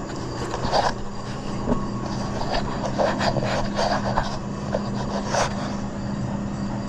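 Wiring and cables being handled and pushed into place, with irregular clicks, rattles and rustles over a steady low hum.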